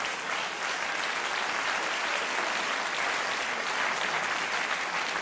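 Theatre audience applauding steadily, swelling slightly in the middle.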